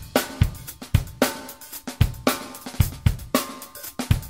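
Drum-kit beat: kick, snare and cymbal hits repeating at a steady tempo.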